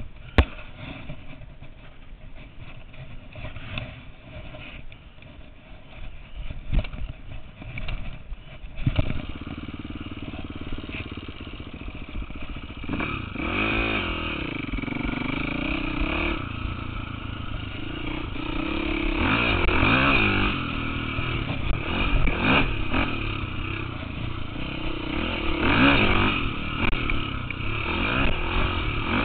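KTM 450 dirt bike's single-cylinder four-stroke engine, quieter with scattered knocks and rattles at first. From about nine seconds in it grows louder, then revs up and down over and over as the bike is ridden.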